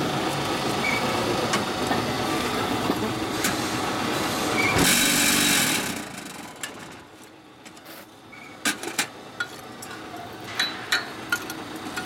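QMJ4-30 mobile concrete block machine running with a steady mechanical hum while concrete mix is worked into its steel mould, louder for about a second before it stops about six seconds in. After that, a scraper strikes the steel mould with a string of sharp knocks.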